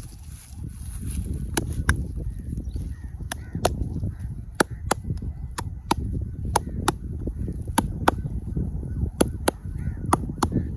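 Percussive head and shoulder massage: hands slapping and chopping, with sharp slaps that often come in quick pairs about once a second over a steady low thudding of kneading and pounding.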